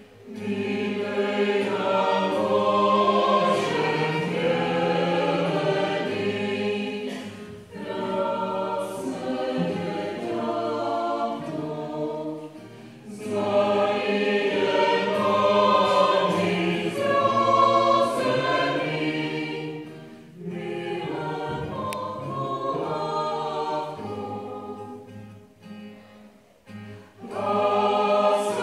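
Mixed choir of men's and women's voices singing, in phrases with short breaks between them.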